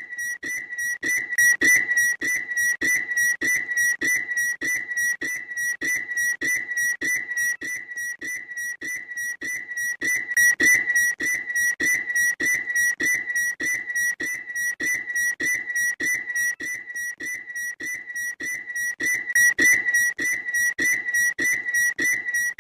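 Shrill, high-pitched bird call repeated rapidly and without a break, an even train of whistle-like notes several times a second.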